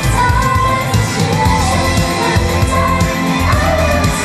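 Live pop song through a stage sound system: a girl idol group singing together over a heavy, steady beat.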